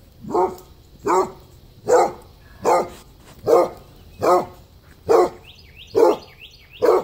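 Basset hound barking in a steady series, about nine barks evenly spaced at under a second apart.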